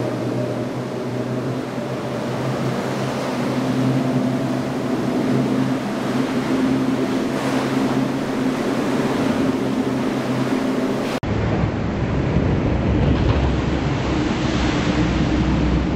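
Twin outboard engines on centre-console boats running at speed: a steady engine hum over the rush of spray and waves. About eleven seconds in the sound cuts abruptly to a deeper rumble.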